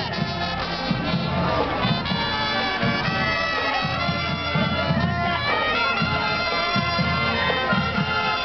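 Marching band playing as it passes: brass horns holding sustained notes over a steady low beat.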